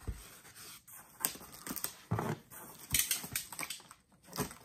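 Cardboard box being opened by hand: its taped flaps are pulled up and folded back, with irregular scraping and crackling of cardboard and packing.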